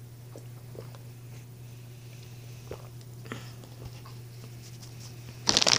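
Quiet room with a low steady hum and a few faint soft clicks, then near the end a plastic chip bag is handled and crinkles loudly.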